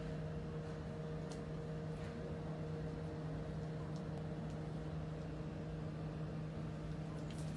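Steady machine hum with a constant low tone, and a few faint clicks near the end.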